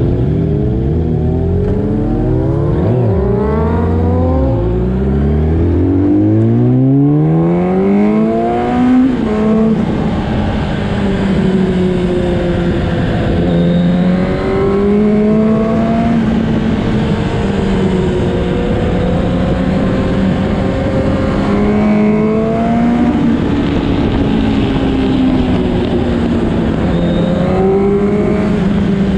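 Sport motorcycle engine accelerating hard through the gears, its pitch climbing steeply and dropping at each shift for the first nine seconds or so. After that it runs at a steadier note that rises and falls gently through the bends, with constant wind rush.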